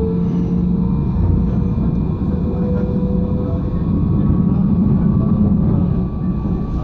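Alstom RegioCitadis tram running between stops: a steady low rumble of wheels on rail, with the electric drive's whine held at a nearly even pitch that edges slightly upward.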